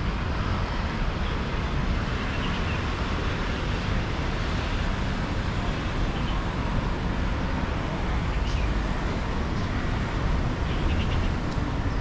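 Steady city traffic noise, with a few faint bird chirps now and then.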